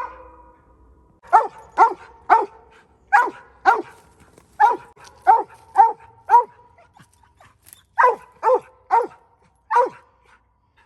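Mountain Cur barking at a tree in short, sharp chop barks, about two a second with a brief pause partway through. This is tree barking, the dog's signal that it has treed game at a den tree.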